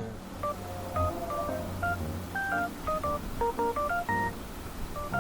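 Background music: a light melody of short, separate pitched notes, several per second.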